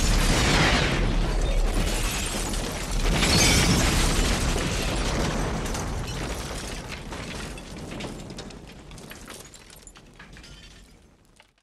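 Action-film explosion sound effects: a big blast, a second surge about three seconds in, then a long fading tail with scattered crackles that dies away near the end.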